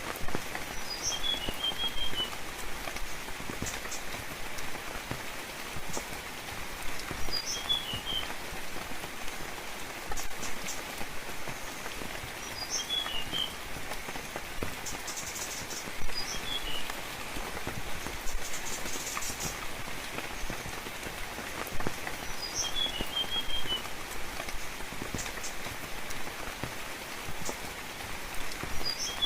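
Steady rain falling, with a songbird repeating a short phrase about every six seconds: a high upward note followed by a quick run of lower notes.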